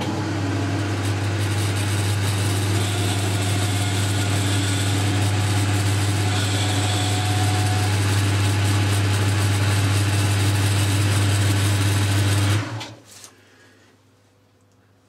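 Boxford metal lathe switched on and running steadily with a strong low hum, its spindle turning the part while a chamfer is turned on its corner. It is switched off about twelve and a half seconds in and runs down within a second.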